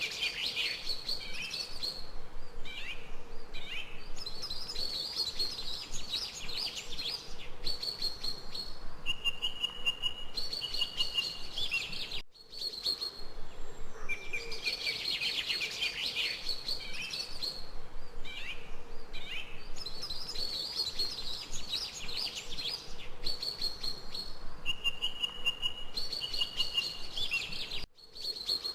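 A chorus of small birds chirping and singing, with rapid high chirps and short held whistles. The same stretch of recording plays twice, with a brief drop-out at each loop point.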